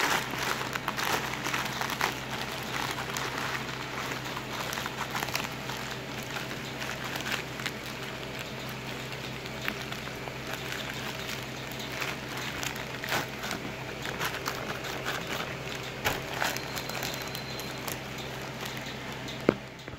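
Plastic courier mailer bag crinkling and crackling as hands handle it and open it, over a steady low hum, with a single sharp tap near the end.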